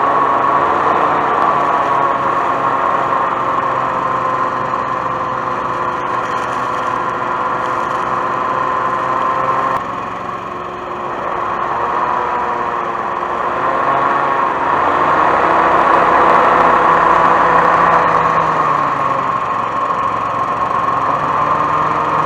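Hoverstream Coastal Pro II hovercraft's engine and fan running steadily with a strong steady hum. About ten seconds in the sound drops suddenly, then builds back up as the throttle opens and is loudest a little past the middle.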